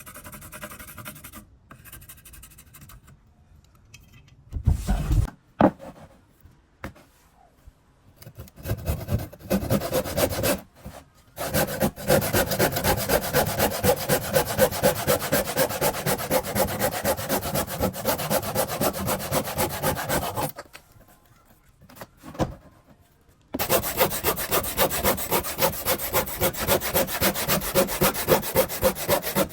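A hand tool scraping back and forth on wood in quick, even strokes, in two long runs with a pause of a few seconds between them. A few knocks and handling sounds come before the first run.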